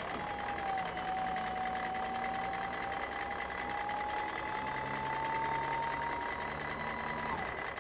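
Heavy-machinery engine sound effect: a steady low drone with a whine that rises slowly in pitch, cutting off shortly before the end.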